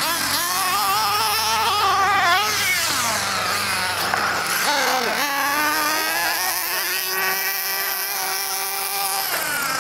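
Motor of a radio-controlled short course truck whining, its pitch rising and falling again and again as the throttle is worked.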